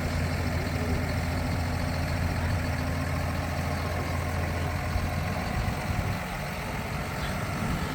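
A vehicle engine running steadily with a low hum; the hum eases and changes about five and a half seconds in.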